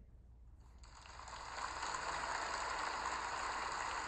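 Large audience applauding, the clapping starting about a second in and swelling to a steady level.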